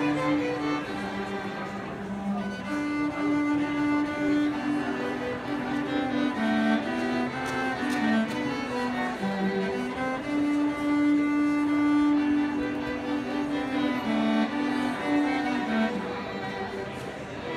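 Music played on bowed string instruments, long held notes moving in a slow melody.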